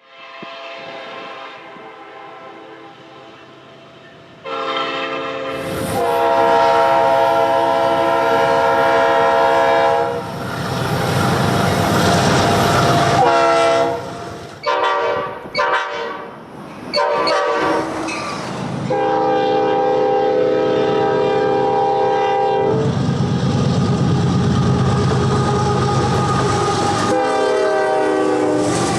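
Train horns blowing in a string of separate clips, each cut off abruptly as the next begins every few seconds, with a few short blasts in quick succession around the middle. Passing trains rumble underneath.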